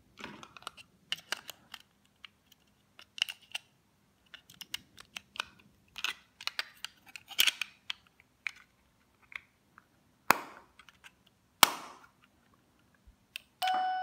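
Plastic clicks and small knocks as the Saful TS-K508 wireless doorbell's push-button transmitter is handled while its 23A 12V battery is fitted, with two louder snaps late on as the case is closed. Just before the end the receiver starts playing its chime.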